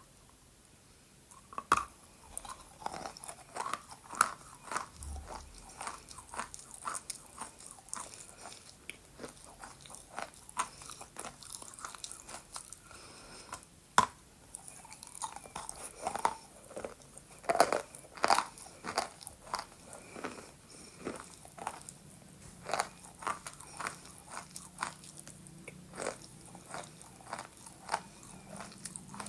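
Wet chalk being bitten and chewed close to the microphone: irregular crisp crunches and crackles, with one sharp snap about fourteen seconds in.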